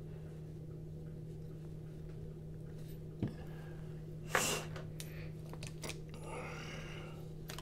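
Quiet handling of a small folding knife over a steady low hum, with a single sharp click about three seconds in and a short, sharp breath through the nose about a second later.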